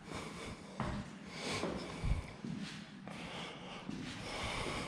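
A person breathing and sniffing close to the microphone, with a couple of soft knocks, the second a low thump about two seconds in.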